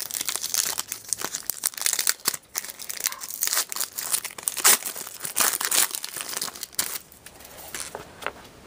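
Crinkling and tearing of a hockey card pack wrapper as the pack is pulled from the box and ripped open. The rapid crackling quietens about seven seconds in.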